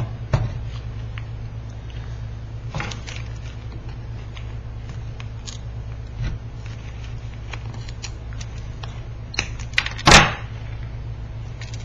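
Scattered small clicks and taps from work on a stained glass piece, over a steady low hum, with one louder sharp knock about ten seconds in.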